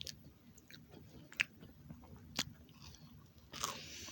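Close-miked chewing and biting of a crunchy snack, with a few sharp crunches about a second apart and a short hiss near the end.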